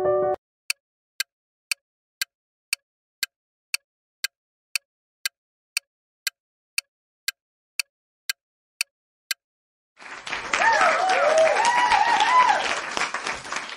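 Quiz sound effects: a short chime, then a countdown timer ticking twice a second for about nine seconds, then a crowd applauding and cheering from about ten seconds in as the correct answer is revealed.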